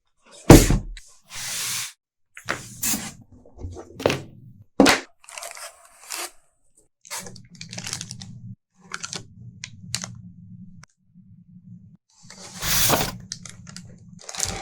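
A box and its packing being opened and handled by hand: a string of sharp knocks and clicks with short tearing and crinkling noises, the longest about a second and a half in and near the end.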